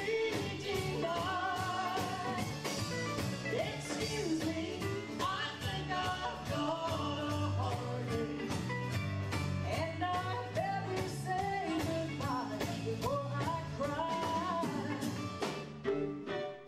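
Live country band playing a song with a steady beat and bass line: a woman sings lead, with a man singing harmony on the same microphone. Near the end the singing stops and a fiddle starts playing.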